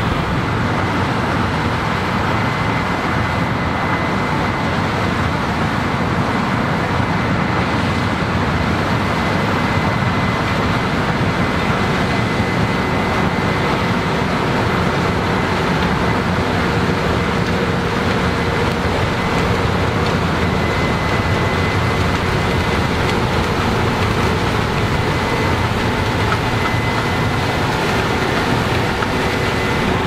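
Case IH 8250 combine harvesting standing corn with a Drago GT corn header: a steady mechanical drone of the engine and threshing, with a thin high whine running through it.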